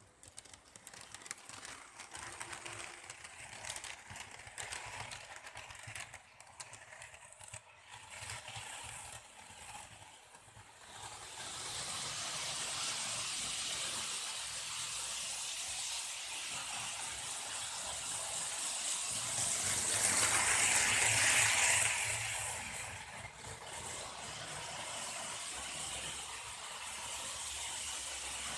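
Märklin H0-scale ICE 2 model train running over the layout's track: scattered clicks and rattles at first, then a steady rushing whir of motor and wheels that swells to its loudest about two-thirds of the way through and then eases off.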